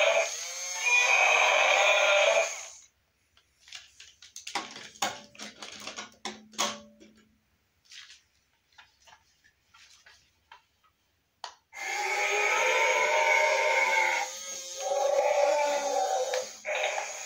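Battery-operated walking dinosaur toy playing its electronic roar through a small speaker, once at the start and again from about twelve seconds in to near the end. Between the roars come scattered clicks and ticks of the toy's mechanism with a brief low hum.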